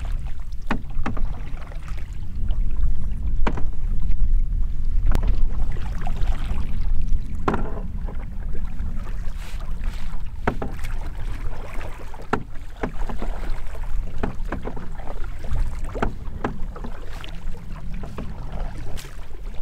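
Canoe being paddled on a lake, with short splashes and knocks from the paddles coming irregularly every second or so. Wind on the microphone makes a steady low rumble underneath.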